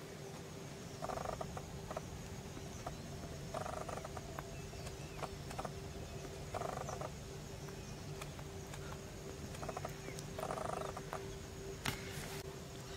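Frogs croaking: four short croaks a few seconds apart, over a faint steady hum.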